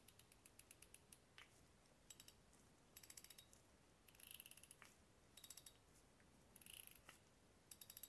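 Front drag adjustment knob of an Abu Garcia Zenon 2500SH spinning reel being turned, giving several short runs of faint, quick clicks with clearly separated detents.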